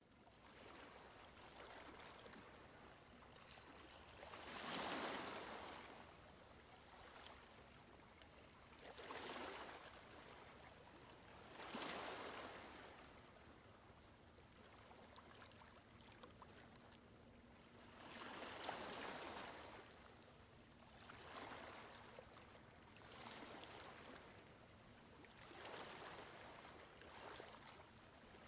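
Soft rush of gentle waves washing in and drawing back, swelling and fading about eight times at uneven intervals.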